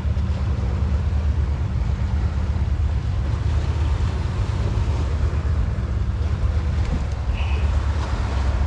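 Wind buffeting the microphone in a steady low rumble, with a faint steady drone underneath.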